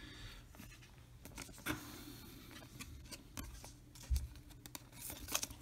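Faint rustling and scattered soft clicks of Star Wars trading cards being handled and shuffled over a cardboard box, with one soft knock a little after four seconds in.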